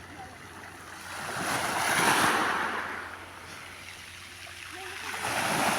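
Sea waves breaking and washing up the shore, two swells of surf, one about two seconds in and another near the end.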